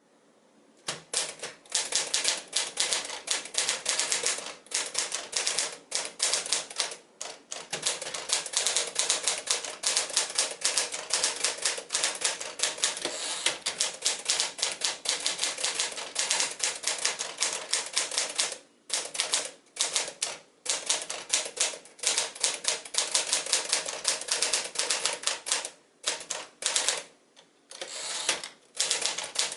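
1956 Smith-Corona Sterling manual portable typewriter being typed on: a fast run of key strikes with brief pauses between bursts.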